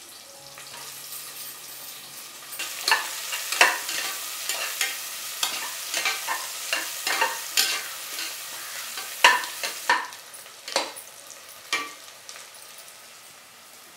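Chopped onions sizzling in hot oil in an aluminium pressure cooker, with a perforated ladle scraping and knocking against the pot as they are stirred. The stirring stops about two seconds before the end, leaving the steady sizzle.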